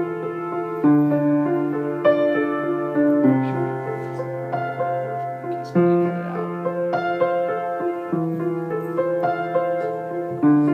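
Keyboard playing a slow, steady chord progression, with a held bass note under each chord and the chords changing about once a second.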